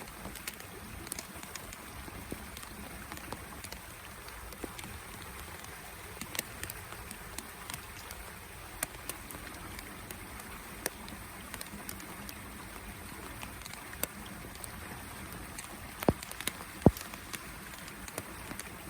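Autumn rain falling: a steady hiss with scattered sharp taps of drops landing close by, two louder taps a few seconds before the end.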